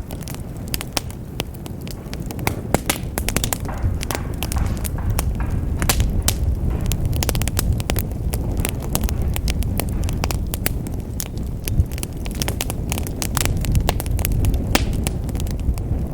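Wood fire burning in a fireplace: many sharp crackles and snaps from the burning logs, scattered irregularly over a steady low rumble of the flames.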